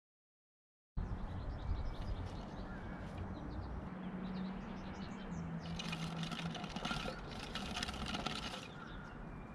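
After a second of silence, outdoor sound cuts in: small wild birds chirping in short calls over a low rumble. From about six to eight and a half seconds in there is a stretch of scratchy rustling.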